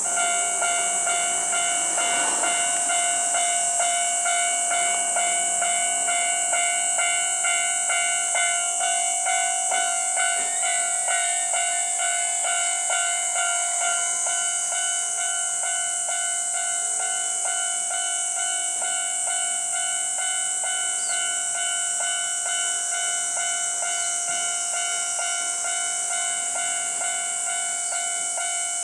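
Japanese railroad crossing warning bell starting up and ringing in a fast, even repeated clang, over a steady high hiss.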